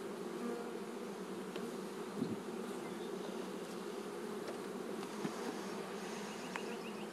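A colony of Italian honeybees buzzing steadily, the dense hum of many bees around an open hive just stocked from a package.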